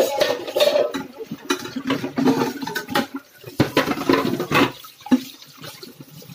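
Tap water running into a stainless steel kitchen sink while dishes are washed by hand, with steel bowls and ceramic plates knocking and clinking against each other and the sink at irregular moments. The dish noise eases off in the last second or so.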